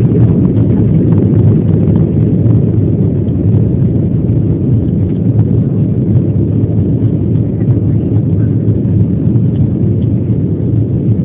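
Steady low rumble of a jet airliner at takeoff power, heard from inside the cabin through a phone's microphone.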